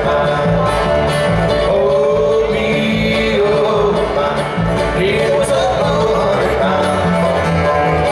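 Bluegrass band playing live: acoustic guitar and upright bass with other string instruments at a steady beat, with a long, held melody line bending in pitch above them.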